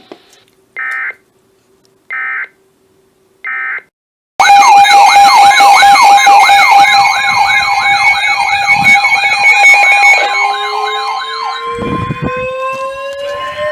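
Three short digital EAS data bursts, evenly spaced. Then, about four seconds in, loud electronic sirens start, warbling up and down about two and a half times a second over steady tones. Near the end a siren winds up, rising in pitch.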